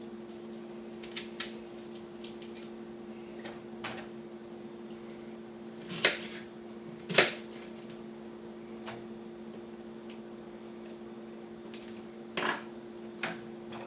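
Kitchen utensils and containers being handled while preparing ingredients: scattered light clicks and knocks at an uneven pace, a few sharper knocks among them, over a steady low hum.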